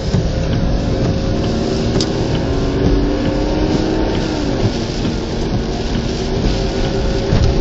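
Car engine running under load, its pitch climbing slowly and then dropping about four seconds in, over a steady rush of road and wind noise.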